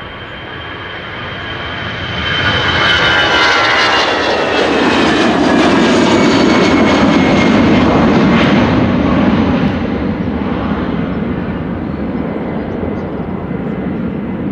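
Airbus A320's twin jet engines at takeoff thrust as the airliner rolls past, lifts off and climbs away. The roar builds, with a high fan whine that slides down in pitch as it passes, is loudest in the middle, then slowly fades.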